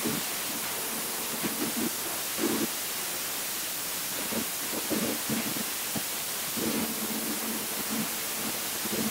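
Water-jet cutting machine running: a steady hiss from the high-pressure jet, with a low hum that comes and goes and a few irregular louder surges in the middle.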